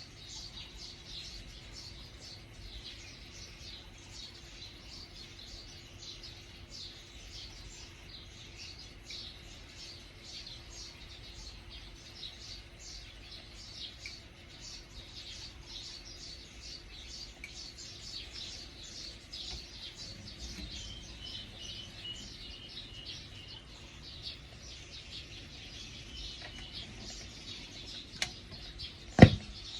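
Birds chirping continuously in quick, overlapping calls, with two sharp knocks near the end, the second one loud.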